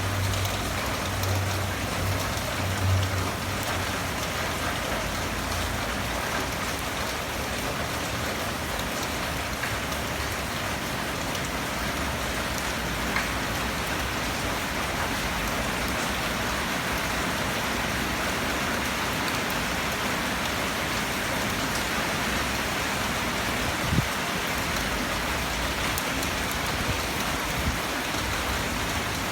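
Steady rain falling. A low hum sounds in the first few seconds, and a single sharp knock comes about three-quarters of the way through.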